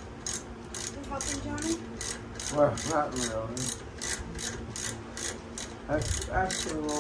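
Socket ratchet wrench clicking as a bolt is run in with short back-and-forth strokes, about three clicks a second.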